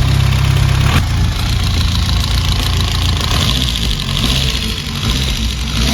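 BMW E30 M3's four-cylinder engine running at idle. A deep, steady rumble drops away about a second in, leaving a lighter running sound.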